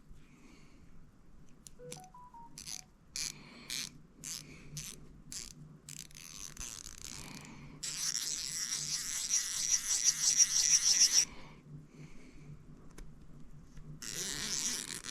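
Icon 1/4-inch ratchet, converted to a 3/8-inch drive and freshly regreased, being worked: separate clicks at first, then a few seconds of fast continuous ratcheting about halfway through, which starts again near the end.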